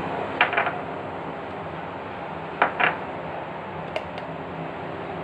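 Small kitchen handling noises: two pairs of brief rasping scrapes, then two light clicks near the end, over a steady low hum.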